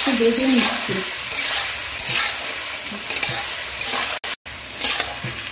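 Sliced onions sizzling as they fry in hot mustard oil and ghee in an aluminium kadai, stirred with a metal spatula that scrapes the pan in repeated strokes. The sound drops out for a moment about four seconds in.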